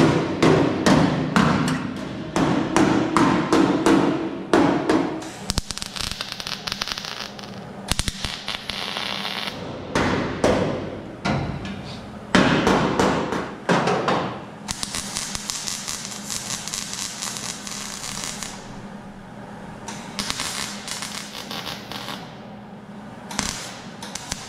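MIG welder arc crackling and spitting as it lays a series of welds joining the new steel quarter panel to the car body. The welds come in bursts of a few seconds with short pauses, the last few shorter.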